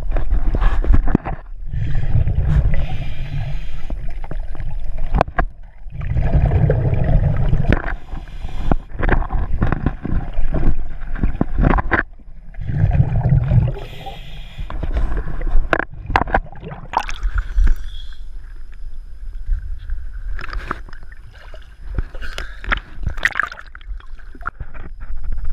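Scuba regulator exhalations heard underwater: loud bubbling bursts about every five or six seconds, each lasting a second or two. Scattered clicks and knocks fall between them, louder in the second half.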